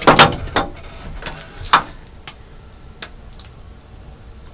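Handling noises: a few sharp knocks and clicks, the loudest just after the start, then fainter scattered ticks, as a payphone handset is put down and a banana is peeled.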